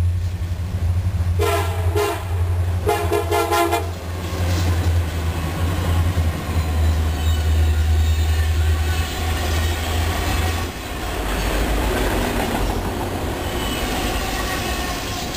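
Norfolk Southern diesel freight locomotives approach and pass, sounding a short horn blast about a second and a half in and a longer one about three seconds in. Their low engine drone gives way about ten seconds in to the rumble and clickety-clack of double-stack container cars rolling by.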